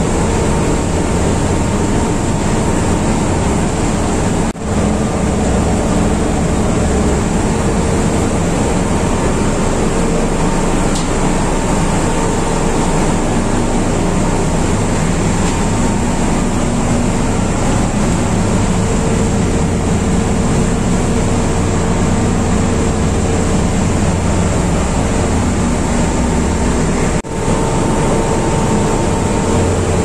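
Loud, steady engine-room noise from other running diesel generator sets and machinery: a continuous low drone with a faint whine over it.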